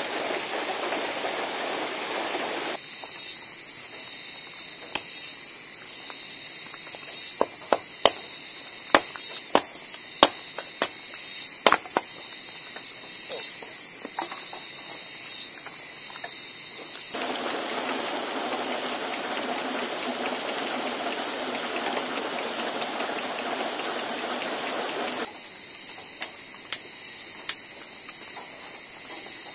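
Steady hiss of light rain, broken in the middle and near the end by a high, pulsing chorus of insects. A run of sharp clicks and knocks sounds over the insect chorus partway through.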